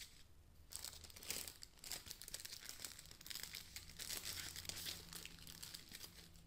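Thin plastic packaging crinkling and rustling in irregular bursts as a phone case is handled in its clear plastic sleeve, starting about a second in.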